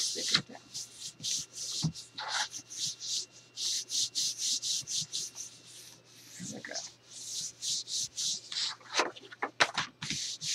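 Hands rubbing and smoothing sheets of paper flat, pressing a taped overlap down: quick repeated swishing strokes, about three a second, with a short pause midway.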